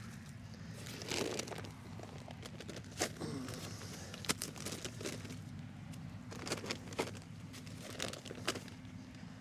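Crinkling and rustling with scattered sharp clicks and knocks, as the sugar feed is handled and worked onto the top of a beehive, over a steady low wind rumble.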